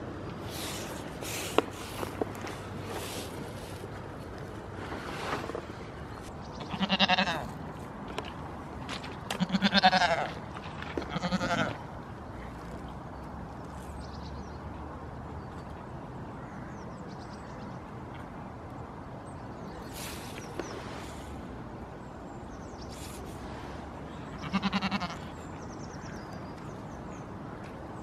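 Goats bleating: four wavering calls, three close together in the first half and one more near the end.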